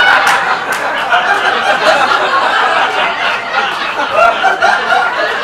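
Live theatre audience laughing loudly, a dense crowd laugh that eases off a little near the end.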